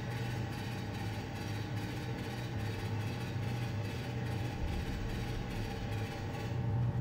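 Train sound effect for a cartoon locomotive: a steady low rumble of the train running along the track, growing slightly louder near the end.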